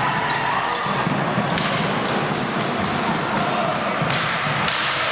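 Handball bouncing on a sports-hall floor during play, a few sharp knocks, over the steady murmur of a crowd of spectators echoing in the hall.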